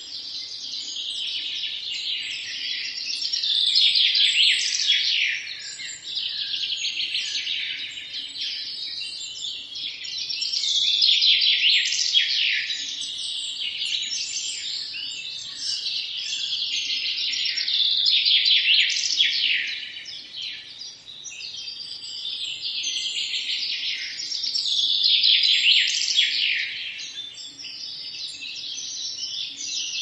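Chorus of many small songbirds chirping and singing at once, dense and unbroken, swelling louder every several seconds.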